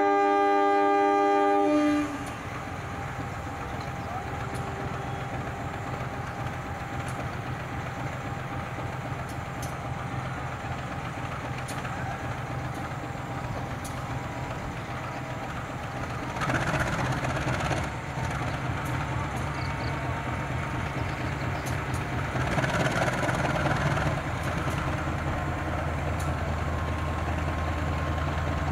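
Horn of a KAI CC 203 diesel-electric locomotive, a blast that ends about two seconds in, as the train leaves the station. After it the locomotive's diesel engine runs steadily and grows louder near the end as the train approaches, with two short rushes of noise in between.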